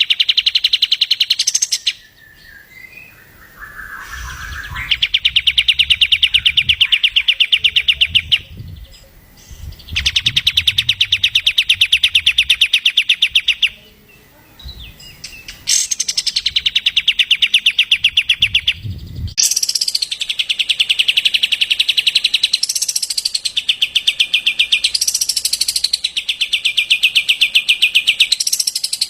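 Songbird singing a very fast, dry, rattling trill in runs of a few seconds, then almost without pause, with rising whistled sweeps breaking in every couple of seconds: a masteran birdsong recording for training caged songbirds.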